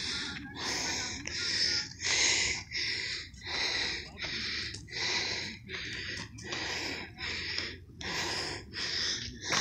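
A hiker breathing hard close to the microphone in quick, rhythmic breaths, a little more than one a second. The panting comes from the exertion of climbing a trail.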